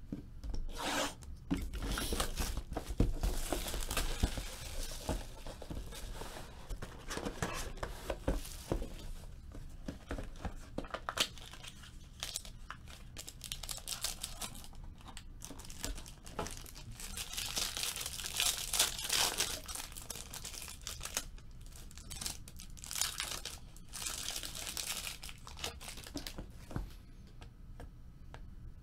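Plastic wrap on a trading-card box slit with a small blade and torn away, then the packaging crinkled and ripped open, in irregular bursts of tearing and rustling.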